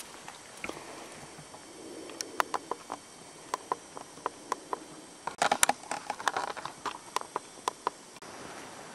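Covered cook pot heating on a burning alcohol stove: irregular light metallic clicks and ticks, with a quick run of them about halfway through.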